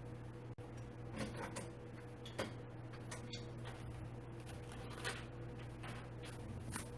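Scattered light clicks and scrapes of gaming-chair parts and hardware being handled during assembly, a few irregular knocks a couple of seconds apart over a steady low electrical hum.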